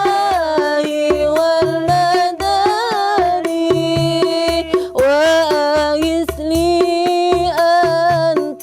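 Sholawat music performed by buskers: an ornamented melody of long, gliding held notes over a steady drum and bass beat.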